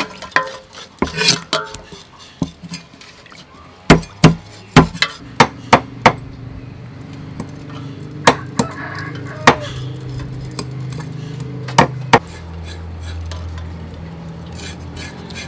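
Cleaver chopping garfish into pieces on a wooden chopping block: sharp knocks of the blade through the fish into the wood, a quick run of strikes about four to six seconds in, then a few more spaced out.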